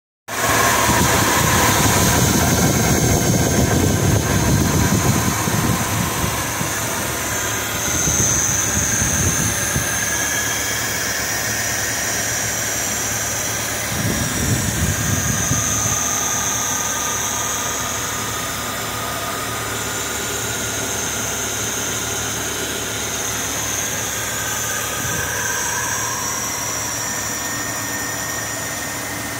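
Cadillac Series 62 V8 engine idling steadily, heard close up from the open engine bay.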